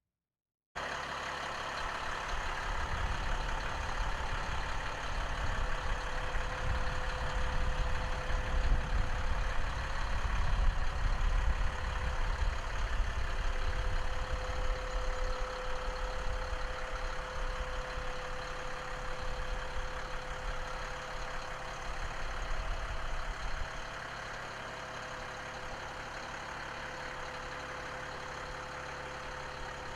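Caterpillar C7 six-cylinder turbocharged diesel engine of an M1093A1 MTV 6x6 cargo truck running, cutting in just after the start. There is a steady whine over a low rumble that is heavier and uneven for most of the time, then settles to an even idle about three-quarters of the way through.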